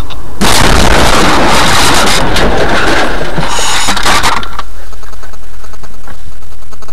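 Car collision: a loud, distorted crash noise starting about half a second in and lasting about four seconds, settling into a low steady hum.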